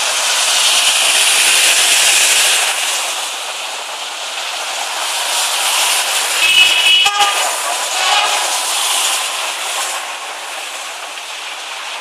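Steady rushing noise of traffic on a wet, flooded street, with a short vehicle horn toot about six and a half seconds in as a minibus passes close by.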